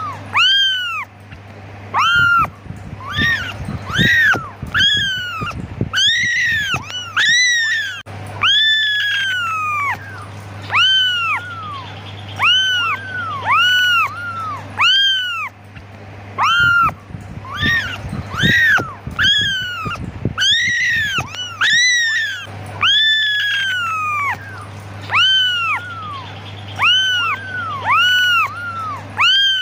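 Several young kittens meowing over and over, high thin calls about one a second that each rise and fall in pitch, sometimes overlapping: kittens calling for their mother.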